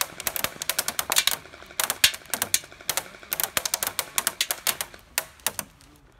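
A&K MK43 airsoft electric light machine gun firing full-auto in bursts: a rapid clatter of clicks that thins out and stops near the end.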